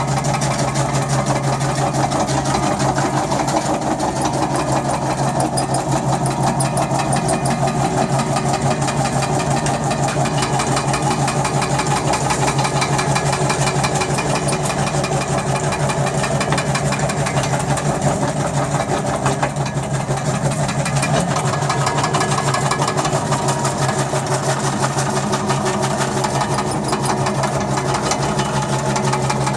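Floor removal (floor stripper) machine running continuously with a steady hum and a fast, even rattle, the kind of machine used to tear up wooden flooring and elastic urethane flooring.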